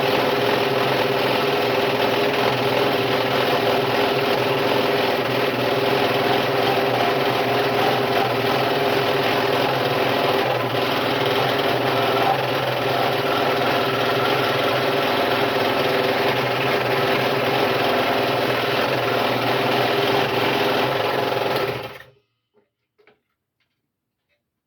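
Scroll saw running steadily with a brand-new blade, cutting wood, then switched off about three seconds before the end, its sound dying away quickly.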